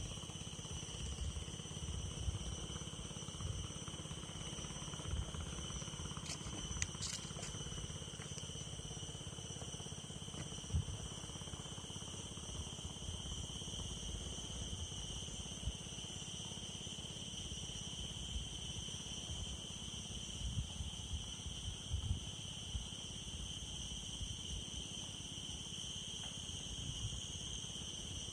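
Steady chorus of insects, heard as several unbroken high-pitched tones, over irregular low thumps and bumps, with a few brief clicks about six to seven seconds in.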